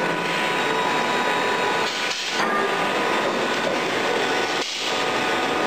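Steady, noisy machinery din from a workshop of screw presses for refractory bricks, with two brief dips about two and four and a half seconds in.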